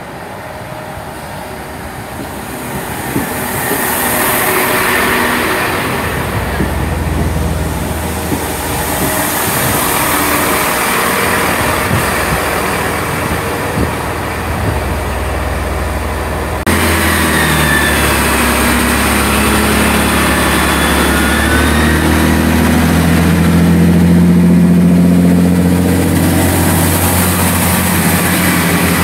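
Class 166 diesel multiple unit running into the platform and standing with its underfloor diesel engines running. The sound changes abruptly about two-thirds of the way through, after which the engine note grows louder toward the end.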